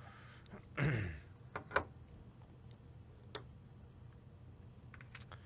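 Handling of small Ring doorbell kit parts: a few sharp plastic clicks and taps with a short rustle about a second in.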